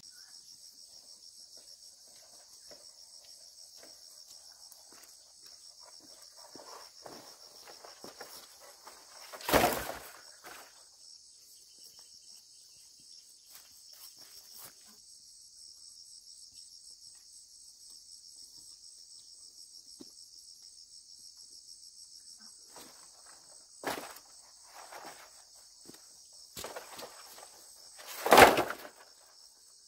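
Steady high-pitched chorus of insects with a fast, even pulse. Two loud sharp knocks cut through it, about ten seconds in and near the end, with a smaller knock and soft rustles and taps in between.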